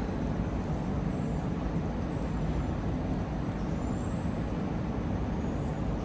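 A steady low rumble with a constant low hum running through it, the kind of sound made by machinery. A few faint, very high, thin rising whistles come about a second in and again near the end.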